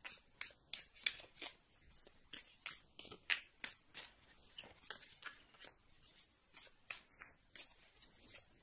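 Tarot cards being shuffled and handled by hand: faint, irregular clicks and card snaps, a few each second.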